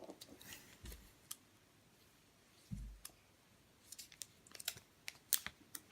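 Faint scattered clicks and small plastic taps of a Kinder Joy egg being handled and opened, with two soft low thumps in the first three seconds.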